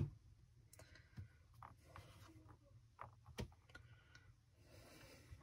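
Faint, scattered small clicks and taps from wires being handled and fitted into the spring terminals of an electronics kit, half a dozen or so in the first few seconds. Quieter toward the end.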